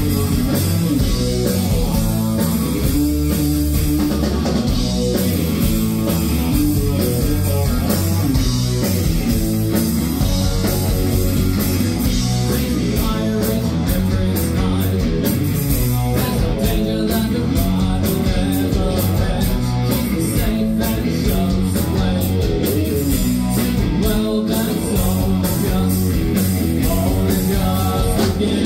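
Live rock band playing loud: electric guitar, bass guitar and drum kit with a steady beat, under a male lead singer's vocals.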